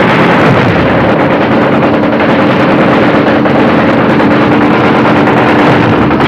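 Engines of river assault boats running under way: a loud, steady engine drone over a wash of noise.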